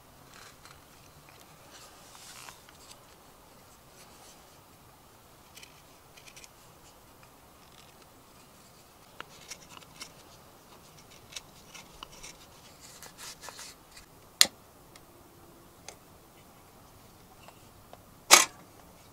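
Knife whittling a wooden stick: quiet, short scraping cuts taking shavings off, one after another. Two sharp, much louder clicks stand out, one about two-thirds of the way in and one near the end.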